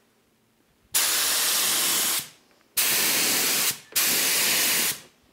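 Compressed-air gravity-feed spray gun spraying thinned two-component polyurethane lacquer: three hissing bursts of about a second each, the first starting about a second in.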